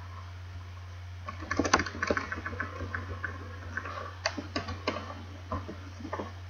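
Typing on a computer keyboard: quick, irregular key clicks starting about a second and a half in, over a steady low hum.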